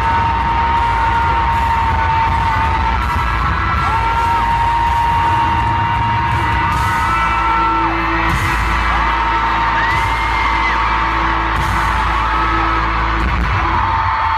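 Live pop-rock concert heard from the audience: a loud amplified band with long held sung notes over heavy bass, and the crowd yelling.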